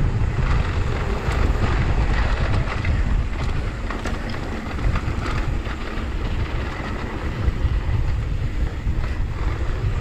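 Wind buffeting the microphone as a mountain bike rides fast down a dry dirt trail, with the tyres rolling over loose dirt and scattered clicks and rattles from the bike over the bumps.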